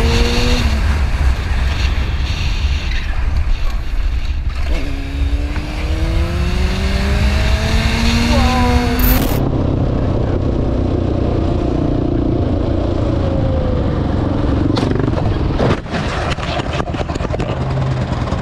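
Motorcycle riding at speed, heard from on the bike. In the first half the engine revs with a pitch that climbs steadily. Partway through, a steady engine and road noise take over, and near the end a rapid clatter of knocks and scrapes follows, as the bike goes down.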